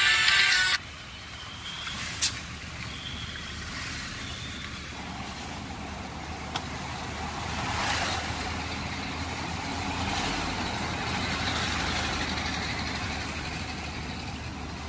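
Road and traffic noise from a moving vehicle: a steady rush of tyres and engine that swells around eight seconds in and again a little later, with a single sharp click about two seconds in. A music track cuts off within the first second.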